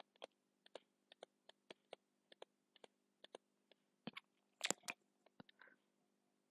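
Near silence with faint, scattered clicks and taps from writing by hand on a computer screen, a few a second, with a louder cluster of taps about four and a half seconds in, over a faint steady hum.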